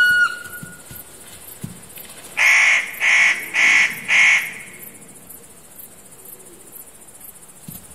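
Spotted nutcracker giving four harsh calls in quick succession, a little over two seconds in. A short high tone sounds at the very start.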